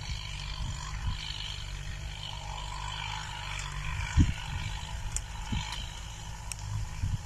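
A low steady rumble with a few short thumps of wind buffeting the microphone, the loudest about four seconds in, over a faint outdoor hiss.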